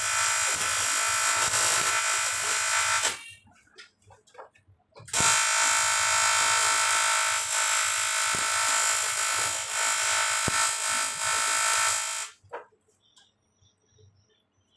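TIG welding arc buzzing steadily while welding a cast water jacket. It cuts off about three seconds in, strikes again about two seconds later, runs for about seven seconds and stops abruptly.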